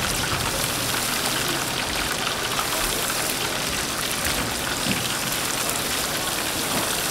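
Hot oil sizzling steadily in a deep fryer as food fries, a dense hiss with fine crackles.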